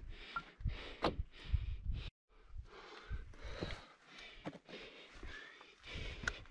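Heavy breathing in repeated swells, with low thumps, and a brief cut to silence about two seconds in.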